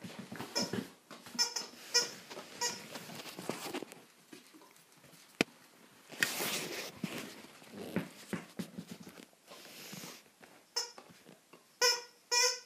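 Cat giving short, high squeaky meows: a run of them in the first three seconds, then two more near the end. Rustling of fur and handling fills the gap between.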